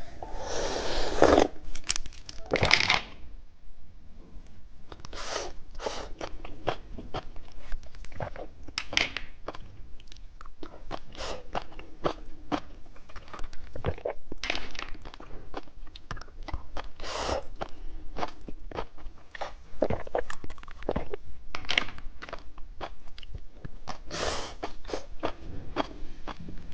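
Candy being bitten and chewed close to the microphone: a dense, irregular run of sharp crunches, with louder, longer bites in the first few seconds.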